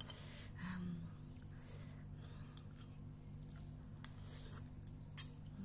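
A person chewing and biting a mouthful of fried instant noodles, with faint small mouth and utensil clicks. There is a sharp click about five seconds in, over a steady low hum.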